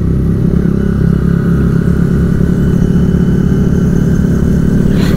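Two single-cylinder four-stroke Honda motorcycle engines running together at low, steady revs: a Fan 160 fitted with a KS Performance cam and KS exhaust, and a Titan 150 with a 4 mm kit and Jet cam. The note holds steady with no revving.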